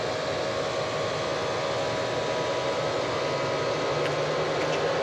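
Steady fan-like whir and hum from a stationary Waymo self-driving minivan, with a low hum joining about four seconds in.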